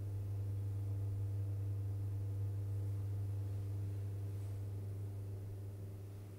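Steady low hum of room equipment in a small tiled shower room, with fainter higher steady tones above it and no change in pitch.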